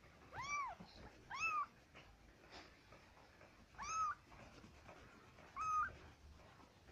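Kitten mewing four times, high-pitched mews spaced a second or more apart, each rising then falling in pitch.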